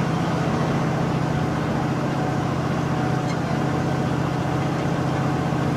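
Steady low drone of a moving road vehicle's engine and road noise, unchanging throughout.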